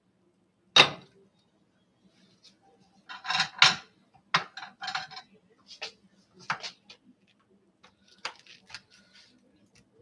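Glass casserole lid set down on the counter with a sharp clack about a second in, followed by a burst of clattering knocks around three to four seconds and scattered lighter clicks of kitchenware being handled.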